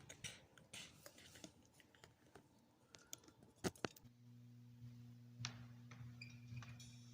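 Faint scattered clicks and small knocks of handling, with a sharper double knock just before a steady low electrical hum switches on about four seconds in and holds.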